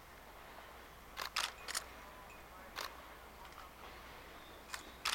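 Sharp camera-shutter clicks: a quick run of three about a second in, then one single click and a close pair near the end, over a faint hiss.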